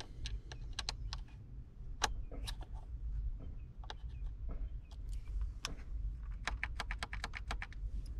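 Small, sharp plastic clicks and taps from a pick tool and fingers working the twist-lock bulb sockets on a Toyota 4Runner's HVAC control panel. The clicks are scattered at first, then come in a quick run about five and a half seconds in, over a low steady hum.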